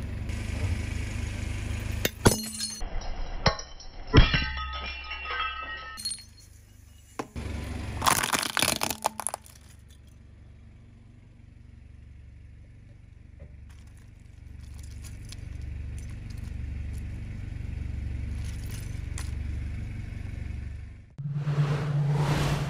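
A car tyre crushing brittle things, with crunching and several sharp cracks, the loudest burst about eight seconds in. A car engine idles with a low pulsing rumble in between. Music with a heavy bass starts near the end.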